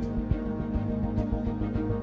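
Background music with sustained tones and a regular beat.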